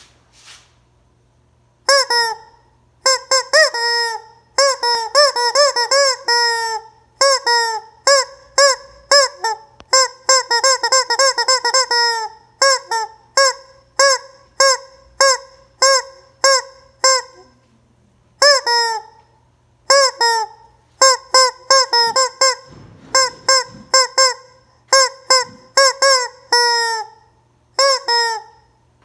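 Rubber squeeze chicken toy squawking over and over in quick runs of short, arching honks, starting about two seconds in, with a faint steady low hum underneath.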